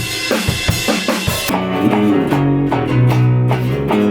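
Rock band playing: drum kit with cymbals and electric guitar for about a second and a half, then the cymbals drop out and guitar with held bass notes carries on.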